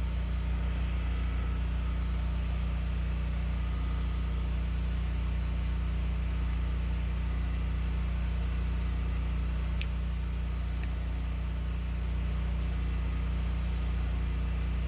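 A steady low machine hum, with one sharp click about ten seconds in.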